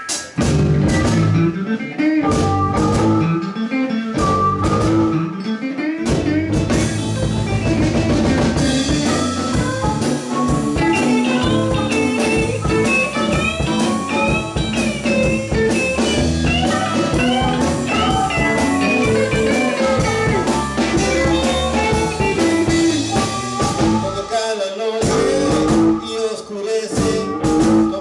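Live blues band playing with drum kit, electric bass, electric guitar and harmonica. The opening is sparse and broken, and the full band fills in from about six seconds in.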